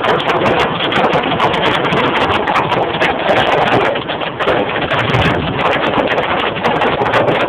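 Hail hitting a car's roof and windshield, heard from inside the cabin: a dense, steady clatter of many small, irregular impacts.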